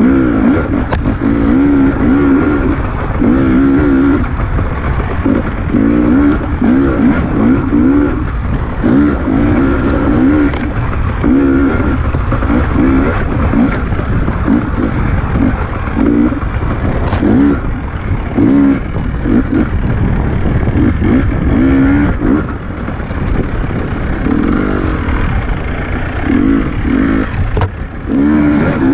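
Enduro motorcycle engine being ridden hard, its pitch rising and falling with repeated bursts of throttle over a constant low rumble, with a few sharp knocks.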